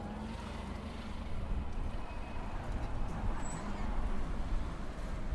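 Steady low rumble of street traffic, with faint scattered higher sounds over it.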